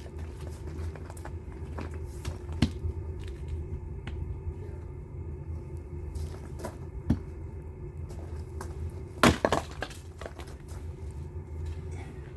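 Firewood being worked: a few sharp wooden knocks, then a louder cracking crunch about nine seconds in, over a steady low hum.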